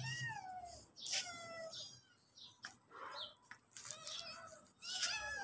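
Cats and kittens meowing, about half a dozen short, high calls from more than one animal. They are hungry cats following someone towards food.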